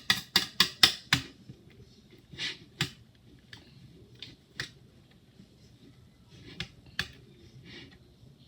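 Slime being stirred with a plastic spoon in a bowl, with activator just added: a quick run of about five sharp clicks in the first second, then single clicks every second or two.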